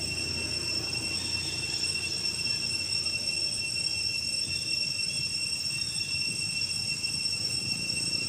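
Steady, high-pitched insect drone holding two constant tones, over a low rumble like wind or handling noise.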